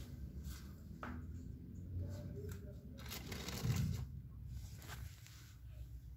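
Rustling and scuffing handling noise as a phone is moved around. A denser scuff comes about three seconds in, with a dull thump as its loudest point.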